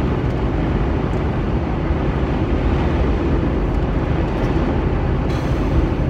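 Steady road and engine rumble inside a car's cabin while driving at highway speed.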